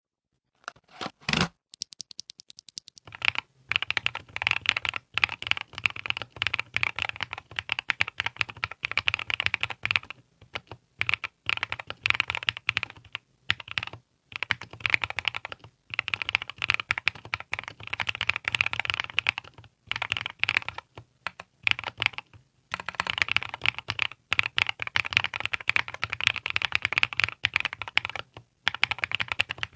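Typing on a mechanical keyboard with MZ Y1 Zhou switches (PA66 top housing, PBT bottom housing): fast, continuous key clicks and clacks with a few short pauses. A single knock comes about a second in, before the typing starts at about three seconds.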